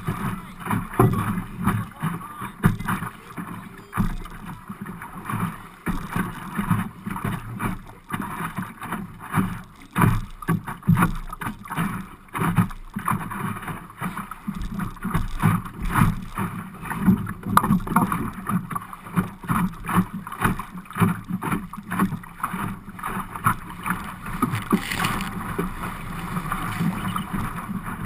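Optimist dinghy's hull slapping and splashing through choppy water under sail, heard as a constant wash broken by many irregular knocks and splashes.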